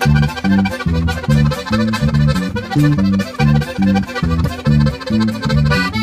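Button accordion playing a fast instrumental melody over a sierreño band's twelve-string guitar and electric bass, with the bass notes bouncing in a steady beat about twice a second. No singing.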